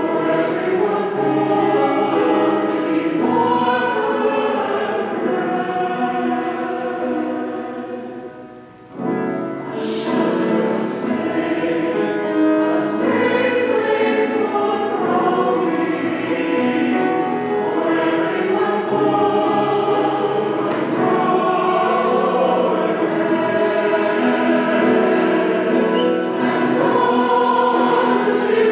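Mixed church choir singing sustained phrases, with a short break about a third of the way through before the singing picks up again.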